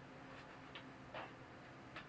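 Quiet room tone with a faint steady low hum and four faint scattered clicks, the loudest a little past a second in.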